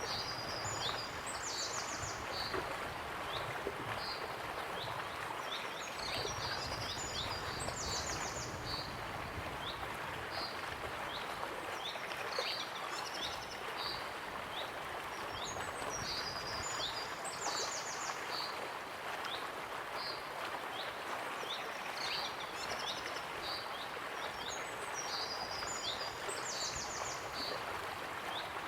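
Waterfall rushing steadily, with a songbird singing the same short phrase of high chirps and a fast trill about every five seconds.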